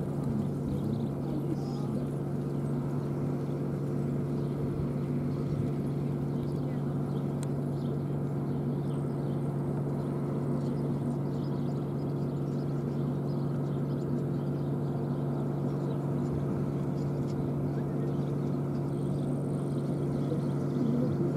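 Steady low hum with a few even tones in it, holding level throughout, with faint scattered ticks and chirps above it.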